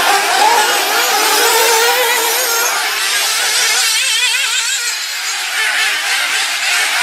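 Several radio-controlled racing buggies' motors revving and whining as they race, the pitch rising and falling as they accelerate and brake.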